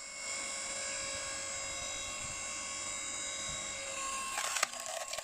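Hydraulic log splitter's motor running with a steady whine.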